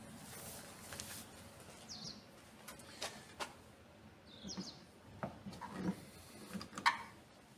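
A bird chirping briefly a couple of times in the background, over faint ambient noise, with scattered light clicks and knocks; the sharpest click comes near the end.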